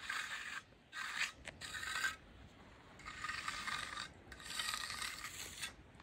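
A hand tool scraping over concrete in about five strokes, each lasting under a second to a second and a half, with short pauses between them.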